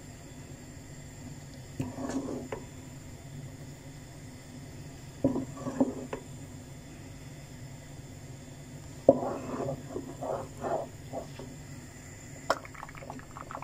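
A ladle stirring and mashing thick mutton haleem in a cooking pot: a few short bursts of scraping and knocking against the pot, with a sharp tap near the end.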